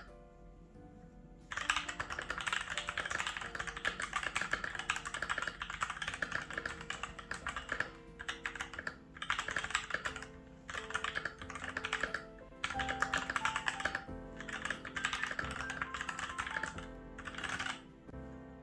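Fast typing on a GamaKay LK67 mechanical keyboard: a dense run of key clicks that starts about a second and a half in and stops in short pauses several times, over background music.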